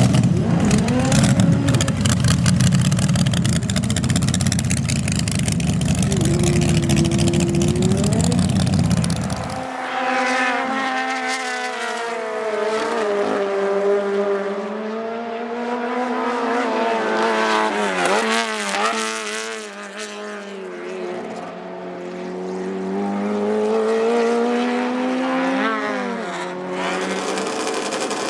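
Racing car engines at full throttle. A dense, loud engine sound cuts off abruptly about a third of the way in, and engine notes then rise and fall in pitch again and again as the cars rev, shift and pass.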